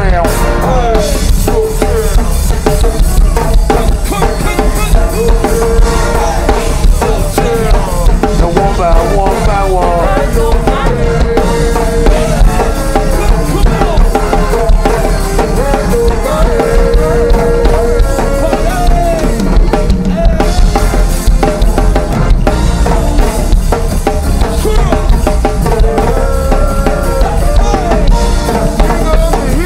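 Music with a steady drum beat and a melodic line over it, playing without a break.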